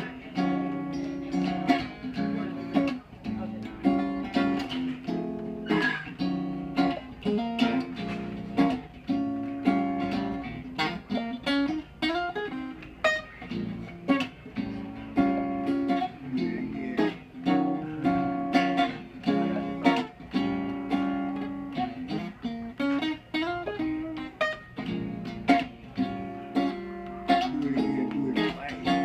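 A hollow-body archtop guitar played solo, chords and picked notes with many sharp attacks and no pause.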